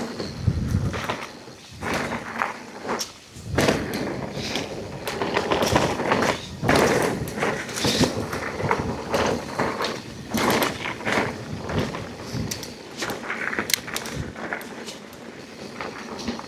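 Mountain bike descending a rough dirt trail: tyre noise on the dirt with frequent knocks, thuds and rattles as the bike hits bumps.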